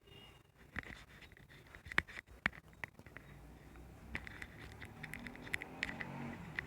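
Handling noise from a smartphone: irregular light taps and scratches, a dozen or so sharp ticks that come closer together from about four seconds in, over a faint low hum.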